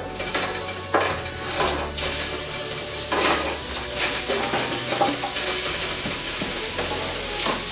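Raw meat sizzling in a stainless steel frying pan while a wooden spatula stirs and scrapes it. A steady frying hiss runs under repeated short scraping strokes.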